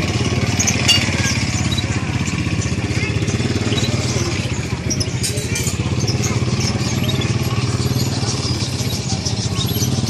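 Busy bird-market ambience: an engine running steadily close by, under many short, high chirps from caged songbirds.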